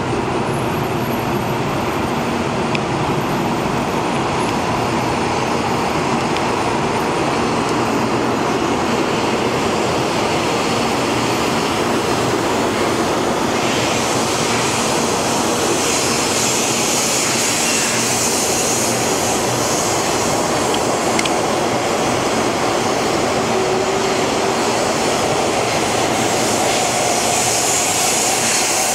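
Taiwan High Speed Rail 700T high-speed train running past along the platform: a steady rushing noise of the train, with a higher hiss growing louder about halfway through.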